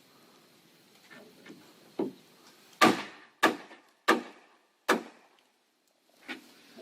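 Hammer blows on a block of wood held against a 4x4 deck support post, knocking the post over to bring it level. A few light taps come first, then four hard, sharp blows in quick succession in the middle, and one lighter knock near the end.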